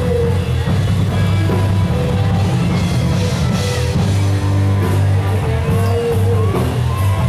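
Loud rock music with a steady bass line, playing without a break.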